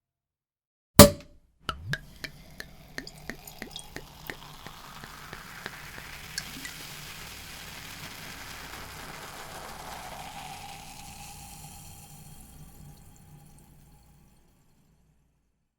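Champagne being poured into a glass: a single sharp crack about a second in, a few clicks, then a fizzing pour that swells, with a tone that rises as the glass fills, and fades out over a few seconds as the bubbles settle.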